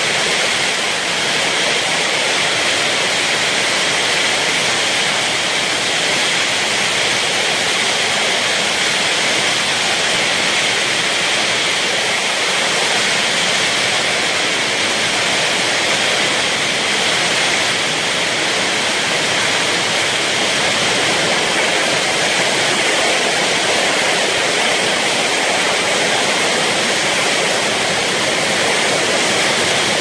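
Heavy rain pouring down in a torrential downpour, a dense, steady rush.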